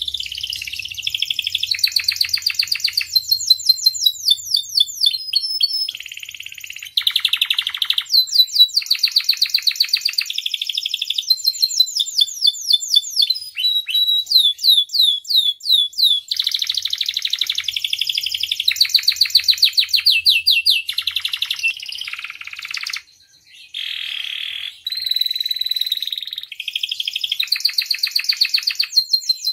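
Domestic canary in full song: a long, unbroken run of rapid high trills whose phrases change every second or two, with one brief pause about three quarters of the way through.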